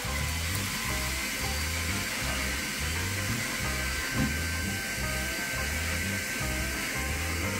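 Background music with a repeating bass pattern, over a steady machine whir with a faint high whine.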